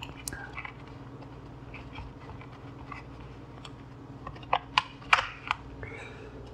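Small clicks and taps of a plastic cover and thin wires being handled and pressed into a foam wing. A quick run of sharper clicks comes about four and a half to five and a half seconds in, as the cover is pushed into place.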